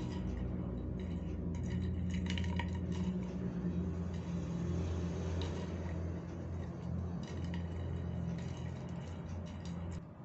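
A kitten batting a plastic drinking straw about on a tile floor: light clicks and taps in two spells, about two seconds in and again near the end, over a steady low hum that drops away near the end.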